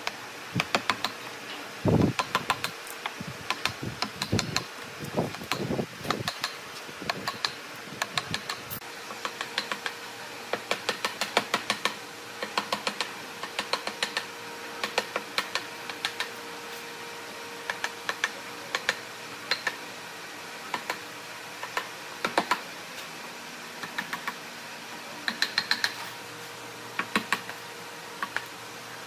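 Quick runs of sharp clicks and light taps, several to a run, over a steady faint hum. A few heavier knocks come in the first six seconds.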